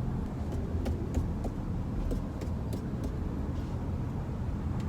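Steady road and tyre rumble inside a Genesis GV70's cabin at highway speed, with a scattering of light, irregular ticks that the occupants trace to the driver's door, its frame or handle.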